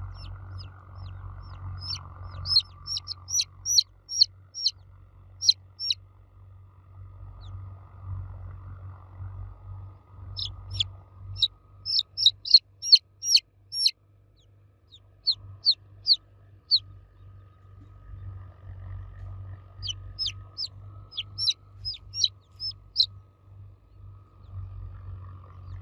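Baby chicks cheeping in quick runs of short, high peeps, coming in several bouts with pauses between them, over a steady low hum.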